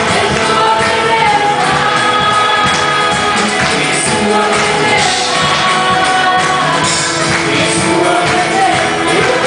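Live gospel worship music: a group of voices singing over a band, loud and continuous.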